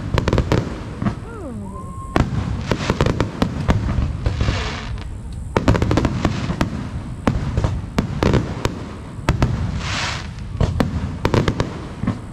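Fireworks display: aerial shells bursting in a rapid, continual run of sharp bangs and crackles, with a few brief hissing swells between and a constant low rumble underneath.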